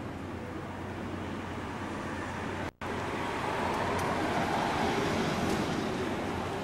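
Street traffic noise: a steady hiss that cuts out for an instant a little under halfway through, then swells louder for a couple of seconds.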